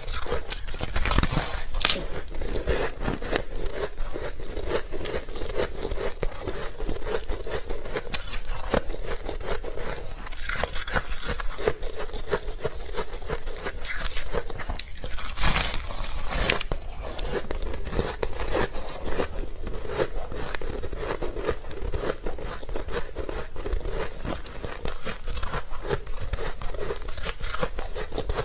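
A person biting and chewing white ice: continuous crisp crunching and crackling, with a few louder crunches about a second in and about halfway through.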